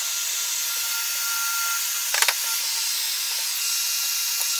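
Handheld electric heat gun running with a steady blowing hiss. It is warming a chainsaw crankcase half to about 300–325 °F so a new main bearing can be dropped into its seat. A couple of light knocks come about two seconds in.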